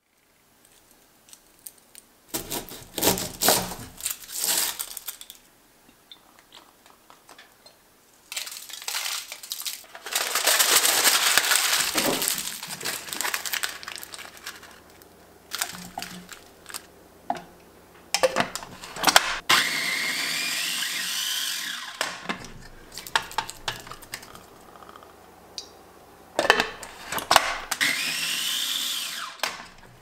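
Kitchen handling clicks, then aluminium foil crinkling around the middle. A mini food processor runs twice in the second half, each time for a few seconds with a rising whine, chopping garlic into a paste.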